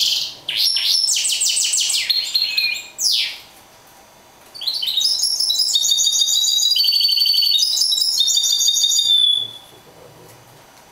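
Caged mule, a canary-hybrid finch, singing. It gives fast trilled phrases for about three seconds, pauses briefly, then sings a longer run of trills and rapid high notes for about five seconds before stopping.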